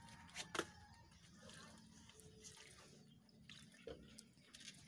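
Faint trickle of water poured from a small plastic watering can onto the soil of potted plants, with a couple of soft clicks about half a second in.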